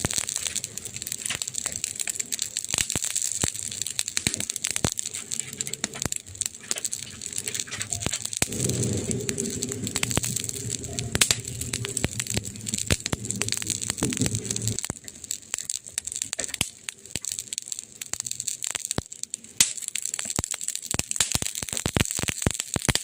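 Wood fire crackling, with dense sharp pops and snaps over a steady hiss. A low hum joins underneath from about eight to fifteen seconds in.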